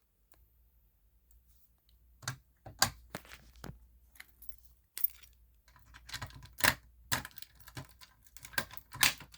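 Scattered clicks, knocks and a jingle of keys as a Simplex fire alarm pull station is handled and opened.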